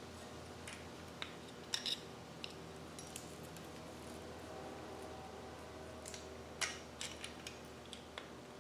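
Scattered light metal clicks and taps of a spanner and screwdriver on a valve rocker's adjusting screw and locknut, setting the tappet clearance on a Land Rover 2.25 engine, over a steady low hum.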